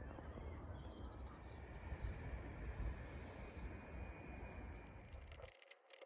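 Wild birds calling in high-pitched chirping phrases, in two bouts, over a low rumbling noise that stops suddenly about five and a half seconds in.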